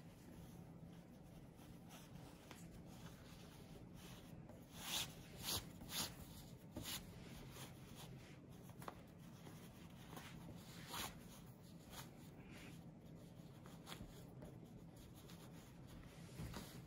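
Faint rustling and rubbing of fabric strips as they are pulled through rug loops and knotted by hand, with a cluster of short swishes about five to seven seconds in and another near eleven seconds.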